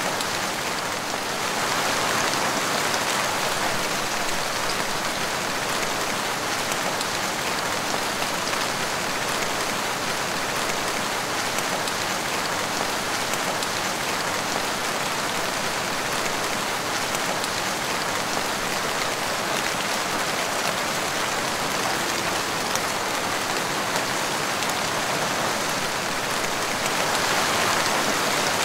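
Steady rain falling on a wet tiled porch floor, drops splashing on the tiles.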